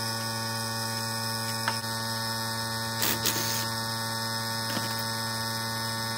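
Electric air compressor running with a steady hum while it inflates a freshly mounted off-road tire through the hose; a short hiss about three seconds in.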